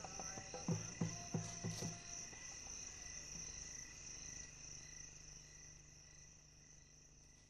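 The last few low struck notes of the closing music in the first two seconds, over a steady high chirring of insects; the whole soundtrack then fades away gradually.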